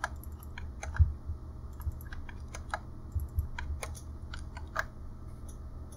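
Computer keyboard typing: irregular, scattered key clicks over a low steady hum.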